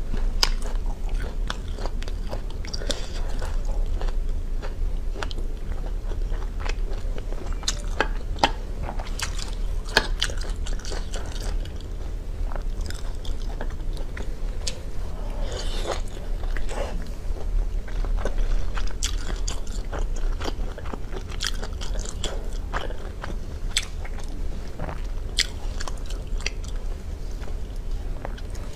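Close-miked chewing and biting of cooked sea snail meat, with wet mouth sounds and many sharp clicks scattered throughout, over a steady low hum.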